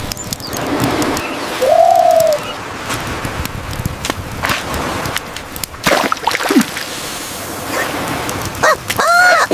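Small bird-like squeaky calls, one arching call about two seconds in and another near the end, over a steady crackling, rushing background.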